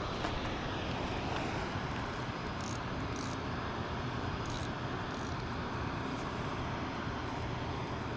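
A steady low rumble of outdoor background noise, with a few faint, short high chirps in the middle.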